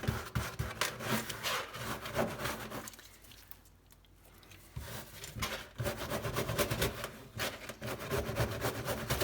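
Paper towel rubbing over small wet metal bike-brake parts as they are dried by hand, in a run of short rubbing strokes that pauses for about two seconds partway through.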